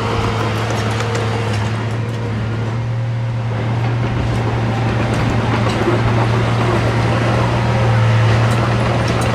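Diesel engine of heavy construction equipment running steadily at constant speed, with a strong low drone and some faint clatter over it.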